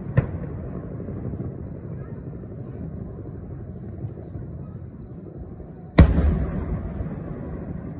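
Aerial firework shells bursting: a sharp bang just after the start, then a much louder boom about six seconds in that rumbles away over the next second or two.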